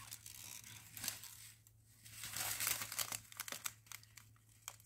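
A small clear plastic bag of diamond-painting rhinestones crinkling and rustling as it is handled, in irregular bursts with small clicks, busiest around the middle.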